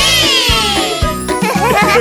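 Cartoon magic-wand sparkle effect: a shimmering glissando that falls in pitch for about a second, over children's-song backing music. Cartoon voices start laughing near the end.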